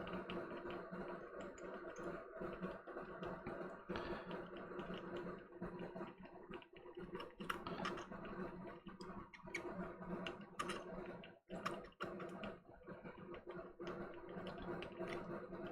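Small irregular clicks and scrapes of a soldering iron tip and pliers working at the solder pins of a DualSense analog stick module, prying it loose from the controller's circuit board. A steady low hum runs underneath.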